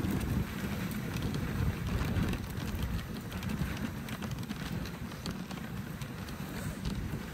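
Dog sled running over a packed-snow trail: the runners hiss and scrape on the snow with many small crunches and clicks, over a low rumble of wind on the microphone.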